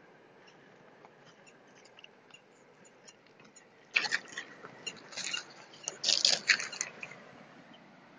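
Faint steady hiss, then from about four to seven seconds in a loud run of scraping, rubbing and knocking as river stones are shifted by hand, mixed with handling noise on the microphone.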